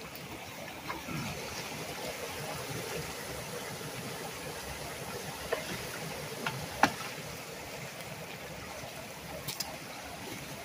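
Water rushing steadily into a beaver-clogged culvert as the debris is cleared, with splashes and a few sharp knocks from a long-handled three-tine cultivator raking sticks out. The loudest knock comes about seven seconds in.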